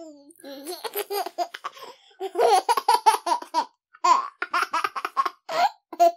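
A baby laughing in bouts of quick, breathy giggles, about four or five pulses a second, with short pauses between bouts.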